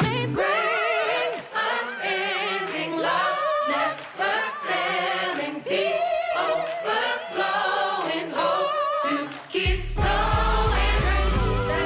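Background gospel-style music: a choir of voices singing with vibrato, with almost no bass for most of the stretch. A deep bass line comes back in near the end.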